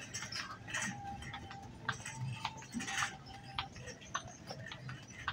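Irregular clicks and taps of someone walking on a hard store floor, over a low steady hum of store background noise.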